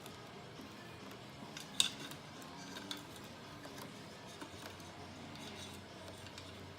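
Small, scattered clicks and clinks of parts and tools being handled while a pachinko machine is taken apart, with one sharper click about two seconds in.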